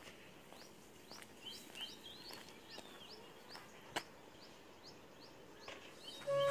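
Birds chirping outdoors at low level, one bird repeating a short rising note about every half second among other warbled notes, with a single sharp click about four seconds in. Music starts just before the end.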